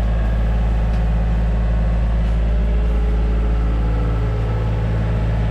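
John Deere 3025E compact tractor's three-cylinder diesel engine running steadily, powering the backhoe while digging a trench.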